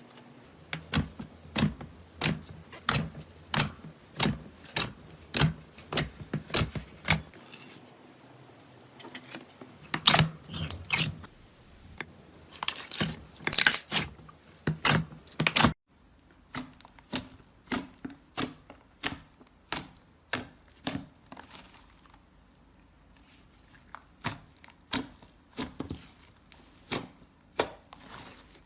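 Slime being squeezed and pressed by hand, giving a run of sharp pops and crackles about two a second, with short pauses. Partway through the pops become quieter.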